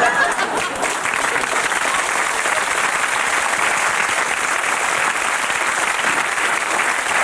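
Large theatre audience applauding steadily after a comedian's closing joke.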